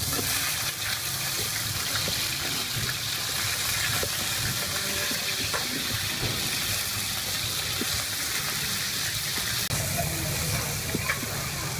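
Crab pieces sizzling in hot oil in a wok: the sizzle starts suddenly as they are tipped in and goes on steadily while a metal ladle stirs them, with a few faint clicks.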